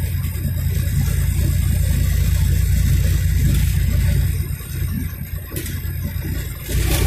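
Road noise inside a moving vehicle's cabin at highway speed: a steady low rumble of engine and tyres, easing off for a couple of seconds before picking up again near the end.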